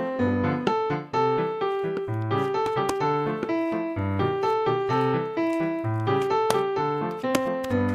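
Solo piano music: a bright melody over a repeating bass line of short, evenly spaced notes.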